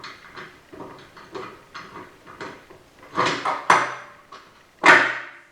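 Metal transmission parts clinking as a planetary gear set is worked into place in a Ford 5R55S transmission: light repeated taps, then a louder clatter about three seconds in and a loud ringing clunk near the end as it clicks into place.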